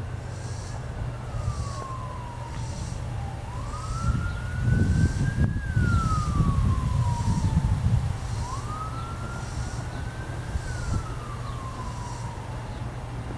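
Emergency vehicle siren wailing, a single tone rising and falling slowly, about three cycles. A louder low rumble swells in the middle and then fades.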